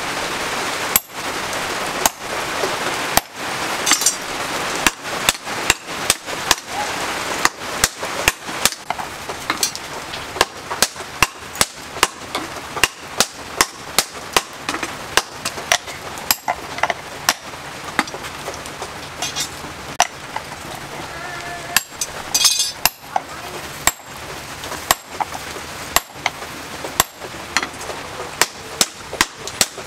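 Hammers striking red-hot car-axle steel on an anvil: a series of sharp metallic blows, sparse at first, then a quicker run of about two a second.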